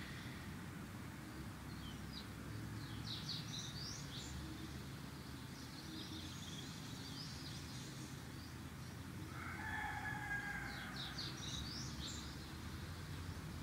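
Small birds chirping in quick bursts, with a rooster crowing once a little past the middle, over a steady low background hum.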